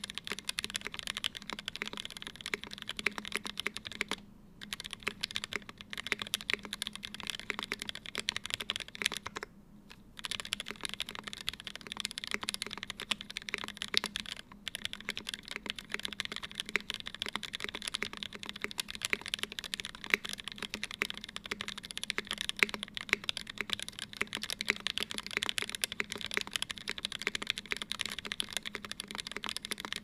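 Steady fast typing on an Mc65 mechanical keyboard with an aluminium plate, Gateron KS3 switches lubed with Krytox 205g0 and filmed, and GMK keycaps: a dense stream of keystrokes with brief pauses about four and ten seconds in.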